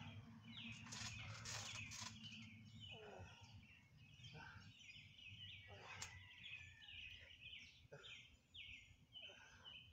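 Faint birds chirping, many short falling chirps repeating over a low steady hum.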